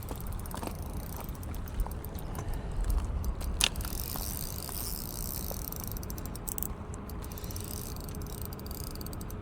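Low wind rumble on the microphone, with scattered light clicks and one sharp click about three and a half seconds in.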